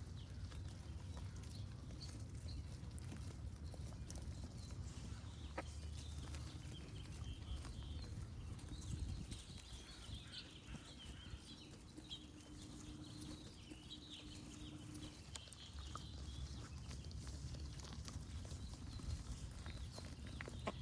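Small birds chirping faintly, mostly through the middle stretch, over a steady low rumble with scattered clicks.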